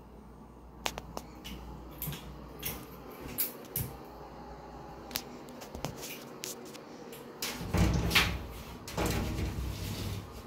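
Sliding glass shower doors on a bathtub being moved along their metal track, giving two rolling, scraping rumbles in the second half, after a string of small clicks and knocks.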